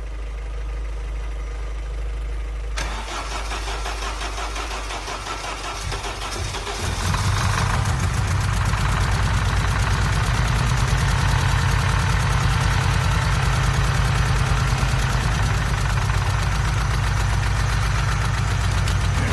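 Vauxhall/Opel Z20LET 2.0-litre turbo four-cylinder with forged internals starting for the first time: it is turned over for several seconds, catches about seven seconds in, then keeps running at idle with a misfire.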